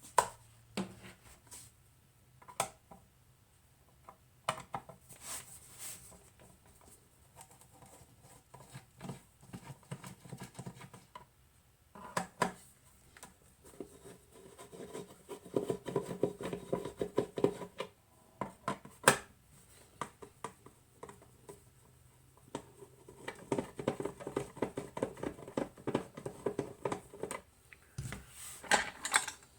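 Screws being undone from the base of a Weller TC202 soldering station with a screwdriver: scattered clicks and knocks of tool and housing, and two longer runs of fast scratchy ticking as screws are turned out, about halfway in and again near the end.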